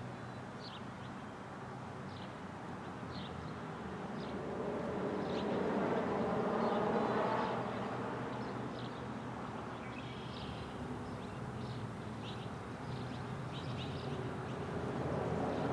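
A vehicle passes on a road, its noise swelling over several seconds and then fading. Small birds chirp in short high calls about once or twice a second.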